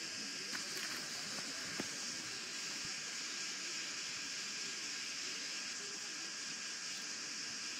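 Steady, even hiss with no clear events apart from a couple of faint clicks in the first two seconds.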